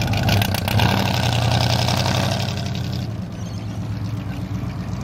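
Engine of a Holden HX ute tractor-truck conversion driving off across grass. The engine note swells in the first couple of seconds, then fades as the vehicle pulls away after about three seconds.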